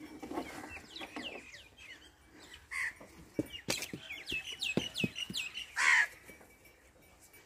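Small birds chirping in a rapid run of short falling calls, with a few sharp clicks among them and one short, harsh, louder call near six seconds in.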